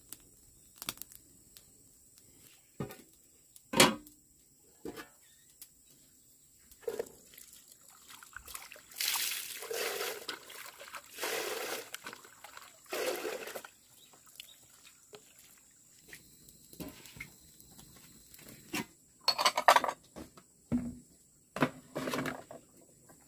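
Water sloshing and splashing as a plastic scoop is dipped into and poured from a plastic basin of water, in three stretches starting about nine seconds in. Near the end, ceramic bowls and plates clatter on a metal tray as they are stacked; a few sharp clicks come earlier.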